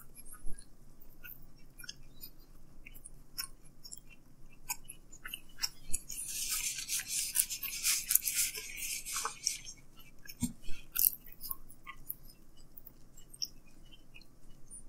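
Close-up chewing of a bite of thin-crust pizza: scattered wet mouth clicks and smacks, with a denser, hissy crunching stretch from about six to nine and a half seconds in.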